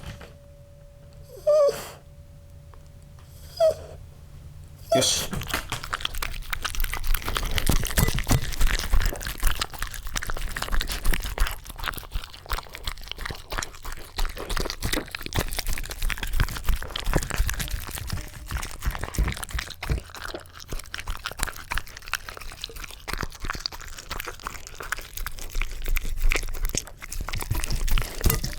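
Shiba Inu crunching and chewing something hard, a dense crackly run of bites starting about five seconds in. Before that, two short sounds over a faint steady hum.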